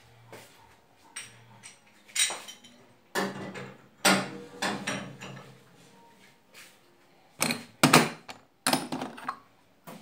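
Kitchen clatter of metal pots and stove parts being handled during cleaning: a series of separate clanks and knocks, some with a short ring, the loudest about eight seconds in.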